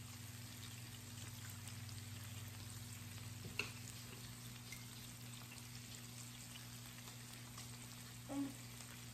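Meat and king mushrooms sizzling on the plate of an electric raclette grill: a faint, steady crackle with a low hum underneath. A single click comes about three and a half seconds in.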